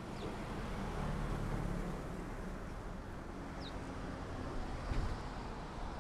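Road traffic passing close by: trucks and cars driving past with a steady low engine and tyre rumble. A few short, high, falling chirps sound over it.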